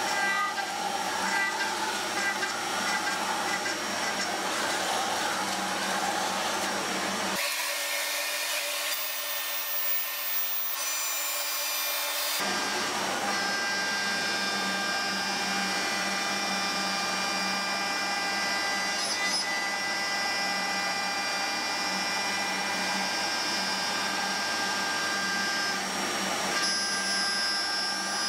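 CNC milling machine cutting a steel plate with a small end mill: a steady machining noise with a high spindle whine made of several steady tones. For a few seconds near the middle the lower part of the sound drops away, then the cut settles into an even whine again.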